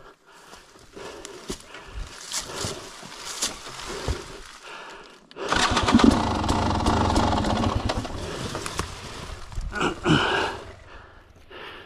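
KTM 300 XC-W two-stroke dirt bike engine comes in suddenly about five seconds in and runs loud and rough for about four seconds, with a short burst near the end. Before that, scattered scuffing and rustling in dry leaves.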